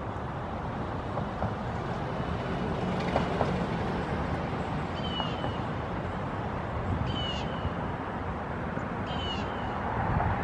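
Three short, high-pitched bird calls about two seconds apart in the second half, over a steady low outdoor rumble.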